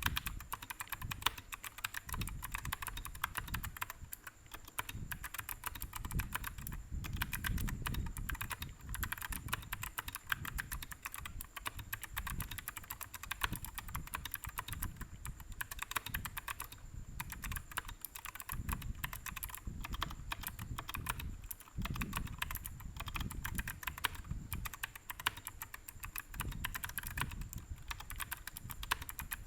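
Typing on a GK61 mechanical keyboard fitted with OEM-profile PBT keycaps: a fast, continuous run of keystroke clacks with no real pauses.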